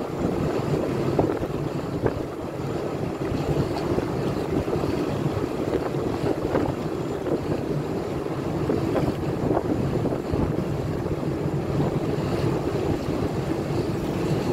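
Wind buffeting the microphone over choppy open water, a steady rush with waves splashing now and then.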